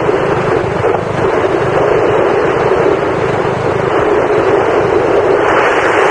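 BSA B50 single-cylinder four-stroke motorcycle engine running under way, largely buried in heavy wind rush on the helmet-camera microphone. A harsher hiss joins near the end.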